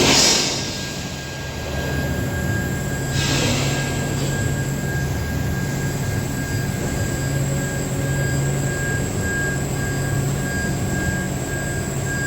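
TIG welding arc running a hot pass on steel pipe: a steady electrical buzzing hum with a thin high whine, with brief hissing surges at the start and about three seconds in.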